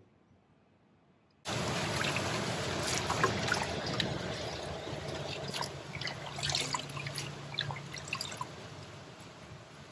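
Water sloshing, splashing and trickling in a stainless steel bowl as soaked bamboo leaves are rinsed and rubbed by hand. It starts abruptly about a second and a half in.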